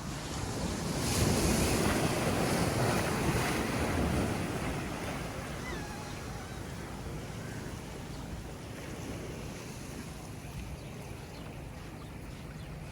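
Ocean surf: a wave breaking and washing up the beach, swelling about a second in and loudest for about three seconds, then easing back to a steady wash.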